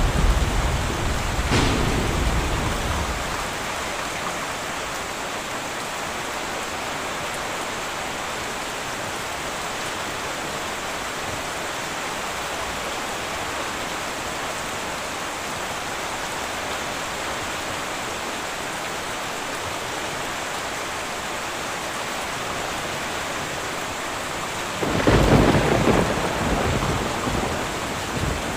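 Heavy rain drumming steadily on a tin roof during a thunderstorm. A rumble of thunder with a sharp crack dies away in the first few seconds, and a sudden loud thunderclap breaks in near the end and rumbles on.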